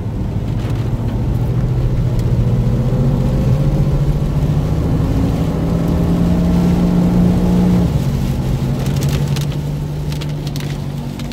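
Jeep engine heard from inside the cabin under hard acceleration on the highway, its note rising slowly in pitch and loudness for about eight seconds, then dropping and easing off.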